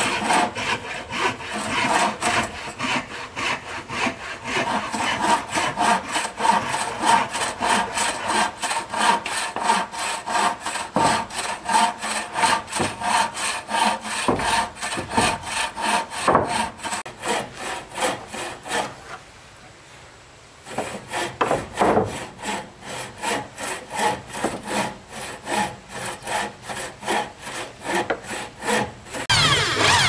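Handsaw cutting through wood in quick, even back-and-forth strokes. The sawing stops briefly a little past halfway, then carries on.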